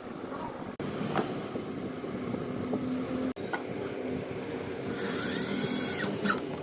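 Power drill motor running steadily with a low hum, cut twice by short breaks, and a brief high squeal that rises and falls about five seconds in.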